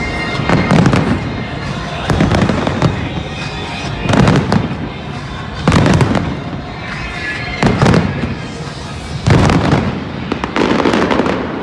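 Aerial fireworks in a large display going off in a steady run. There is a loud bang about every one and a half to two seconds, each trailing off, over continuous noise from the display.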